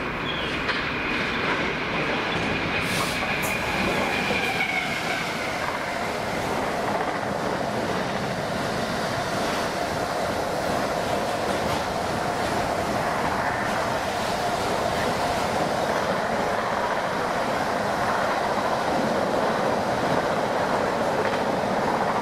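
A Class 66 diesel-hauled freight train of enclosed car-carrier wagons running past, wheels clattering on the rails. A high squeal sounds for the first four seconds or so, and a steady lower whine runs under the rumble of the passing wagons after that.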